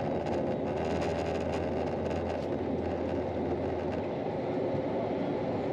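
Cabin noise inside an easyJet Airbus A320-family airliner taxiing on the ground: a steady low rumble from the engines at low power and the airframe, with a low hum and faint light rattles.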